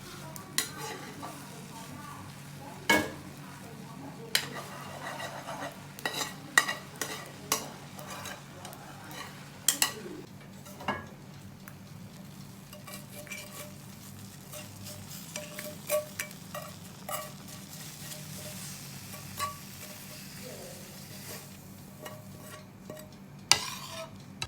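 Irregular clinks, knocks and scraping of a utensil against dishware during food preparation, over a steady low hum.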